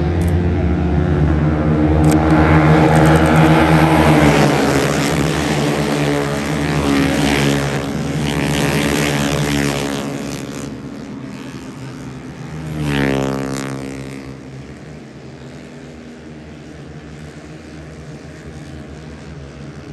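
Racing motorcycles going past at high revs. The engines are loud through the first ten seconds, then one more bike passes about thirteen seconds in, its pitch dropping as it goes by.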